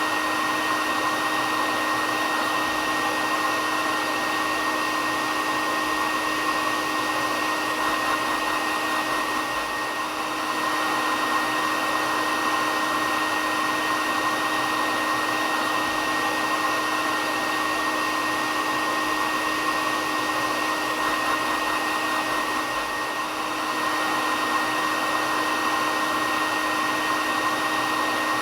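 Hair dryer running continuously: a steady rushing blow of air with a constant high whine from its motor and fan, dipping slightly in level twice.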